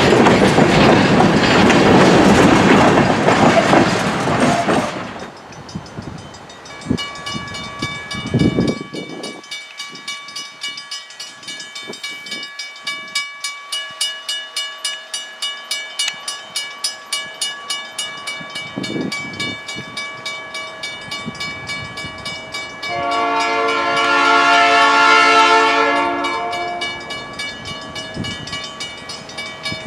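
Freight train with a GP9 diesel locomotive passing: a loud rumble at first, then wheels clicking over rail joints about two to three times a second. Near the end comes a horn blast of about three seconds from its Nathan P5 air horn, which the uploader calls very fouled.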